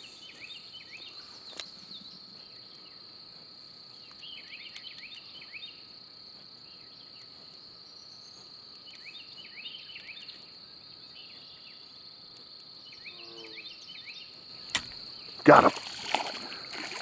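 Steady, high-pitched drone of insects, with short runs of quick falling chirps every few seconds and a couple of sharp clicks.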